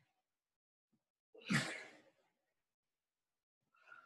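A woman exhaling forcefully with exertion: one sigh-like breath out, about a second and a half in, during a dumbbell swing. A faint breath follows near the end.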